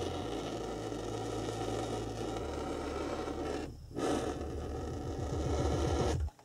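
Hand-held gas torch burning with a steady hiss as its flame heats a tube to soften it for bending; the hiss dips briefly about four seconds in.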